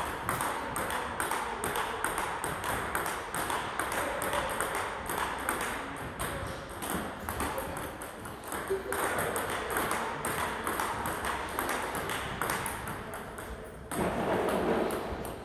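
Table tennis ball being hit back and forth in a fast backhand rally: a rapid, steady run of light clicks as the ball strikes the bat and the table. Near the end a brief, louder and lower sound cuts in over the clicks.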